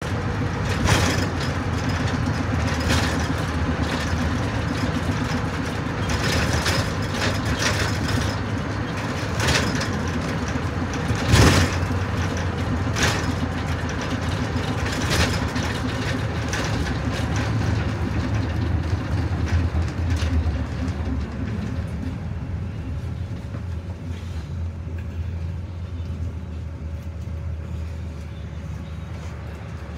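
A steady low vehicle rumble with scattered knocks and clanks, growing quieter over the last ten seconds.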